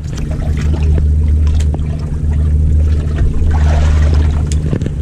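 Fishing boat's engine running under power with a steady low drone. It comes up in level over the first half second, then holds even.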